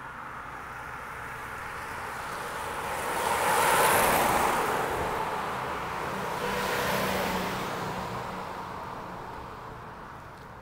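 Road traffic: a car passes by, its tyre noise swelling to a peak about four seconds in and fading. A second, quieter vehicle passes around seven seconds in.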